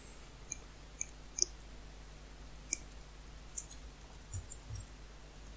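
Computer keyboard keystrokes as a terminal command is typed: scattered single clicks about a second apart, coming closer together in the second half, with a couple of duller knocks about four seconds in.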